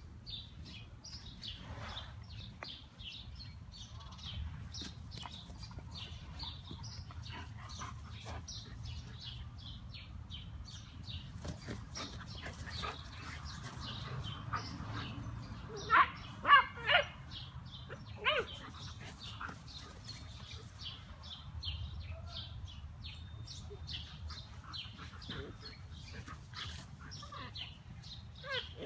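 A German shepherd barks in play: three quick, loud barks about sixteen seconds in and one more a couple of seconds later. Small birds chirp throughout.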